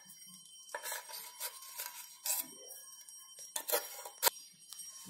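Metal spoon scraping and clinking against a stainless-steel plate of thin rice batter: a series of short scrapes, with a sharper click a little past four seconds in.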